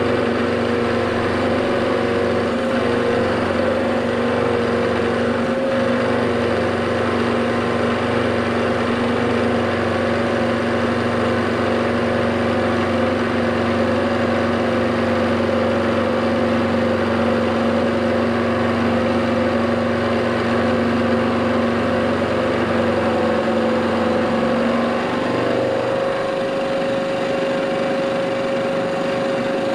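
Vertical milling machine running steadily as its milling cutter takes a facing cut along a metal riser block, machining it down to 20 mm. About 25 s in, the lower part of the machine hum drops away and the running note goes on a little lighter.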